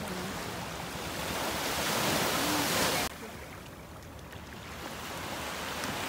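Sea waves and wind rushing, a noise that swells over about three seconds, drops abruptly, then builds again.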